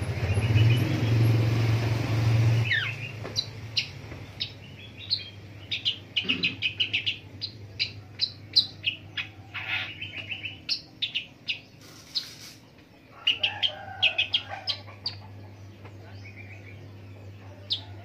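Caged long-tailed shrike singing a quick run of short, sharp chirps and whistled notes, a varied song of imitated calls of other birds, with a brief pause near the middle. A low steady hum sits underneath, loudest in the first few seconds before the song starts.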